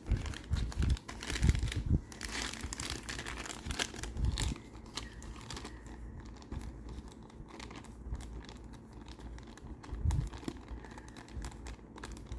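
Crinkling plastic packaging and handling of board-game components, with scattered light taps and knocks as cards and pieces are sorted into a box. The crinkling is strongest about two to four and a half seconds in.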